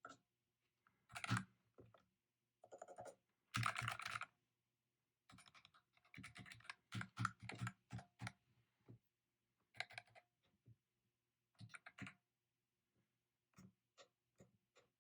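Typing on a MECH K301 mechanical keyboard: irregular runs of key clicks with short pauses between them.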